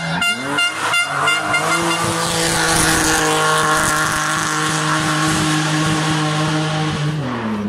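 Rally car engine at high revs passing close on the stage, holding a steady pitch, then dropping in pitch about seven seconds in as the driver lifts off. For the first two seconds there is a rapid pulsing, about four beats a second.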